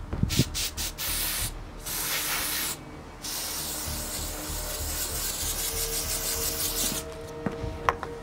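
Aerosol deodorant can spraying: a few short hissing bursts in the first three seconds, then one long continuous spray of about four seconds. A few sharp clicks follow near the end.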